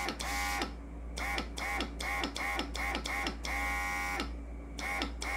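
Battery-powered NEOECO mini airbrush compressor running over a steady low hum, its whir and the hiss of air through the airbrush coming in quick, uneven pulses about three to four a second, with one longer spray past the midpoint. At the higher pressure setting the spray has stopped sputtering.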